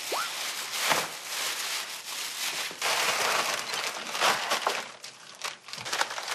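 Plastic bags rustling and crinkling in irregular bursts as leftover food is wrapped and double-bagged by hand.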